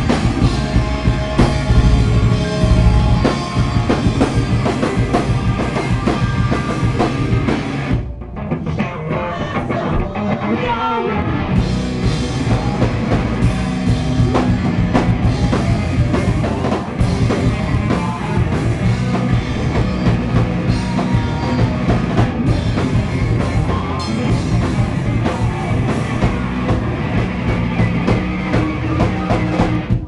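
Live rock band playing loud: drum kit with electric guitars and bass, the outro of a song. About eight seconds in the full band drops out for roughly three seconds, leaving a thinner line that bends in pitch, then comes crashing back in.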